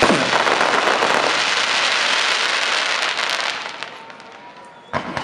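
Aerial fireworks crackling densely as glittering stars burn out, dying away after about three seconds, then a single sharp bang near the end.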